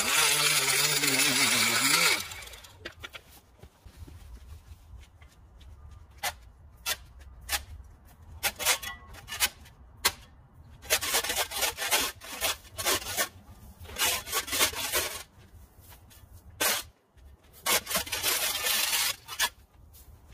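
A power edger runs loudly and cuts off about two seconds in. A flat shovel then scrapes cut dirt and grass along the concrete edge in a series of short scraping strokes, some in quick runs.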